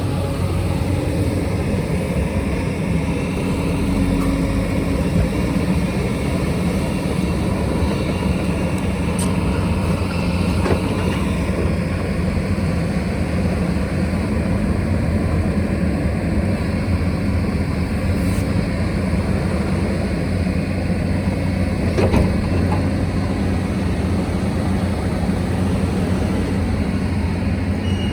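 Diesel engine of a working earthmoving machine running steadily, with a few brief knocks.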